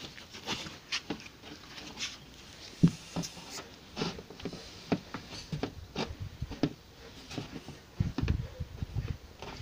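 Knife cutting into the wall of a plastic jerrycan in short, irregular scraping strokes, with a sharp knock about three seconds in.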